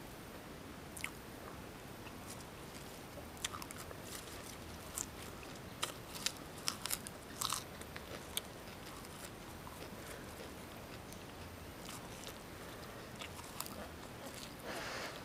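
Close-miked eating: crisp crunches and chewing of fresh lettuce leaves, the crunches bunched in the middle, with a longer rustling crunch near the end.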